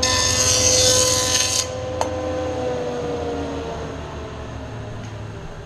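Jointer planing the edge of a board straight and square: the high hiss of the cutterhead taking the cut over the machine's steady whine, stopping about a second and a half in. A sharp knock follows, then the whine slowly fades and falls in pitch as the cutterhead spins down.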